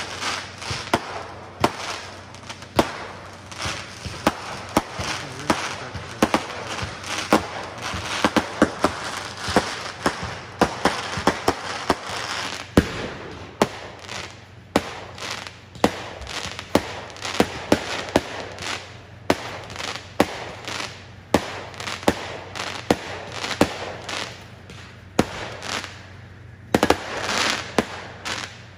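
Aerial fireworks going off in a rapid, continuous run of bangs and crackling, several reports a second, with a louder crackling stretch near the end.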